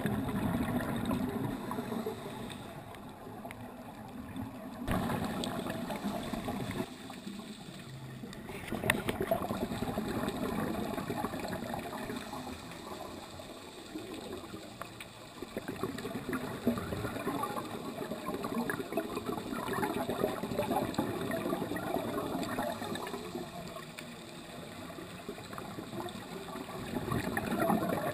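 Underwater bubbling and gurgling heard through an underwater camera housing, swelling and fading every few seconds like a scuba diver's exhaled bubbles.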